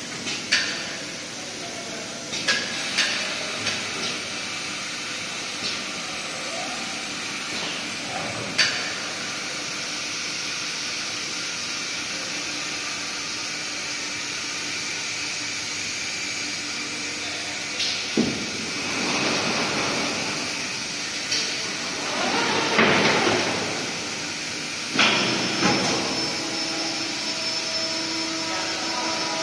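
Machinery of a short-cycle hot press line running: a steady mechanical hum broken by sharp clanks and knocks from the vacuum-suction board loader as it picks up and moves particleboard. A little past the middle comes a longer rushing hiss, followed by more knocks near the end.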